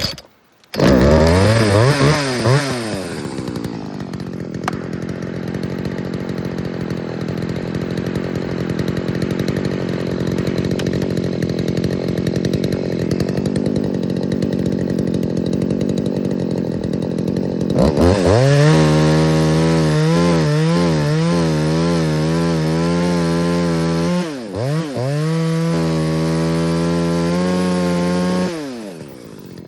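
Gas chainsaw catching about a second in and revving up, then running steadily at high speed. From about two-thirds of the way through it is revved up and down with a wavering pitch, stumbles briefly once, and drops to a quieter idle near the end.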